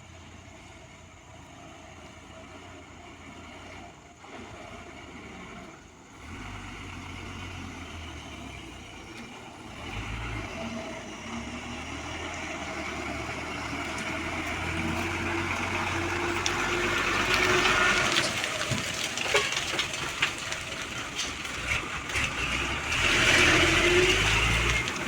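Diesel truck engine running under load, growing steadily louder, its pitch stepping up and down as the revs change, with knocks and rattles in the later part.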